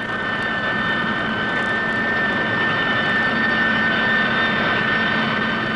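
McDonnell F2H Banshee twin-jet fighter's engines running steadily: a steady high whine over a rushing roar, swelling slightly in the first second.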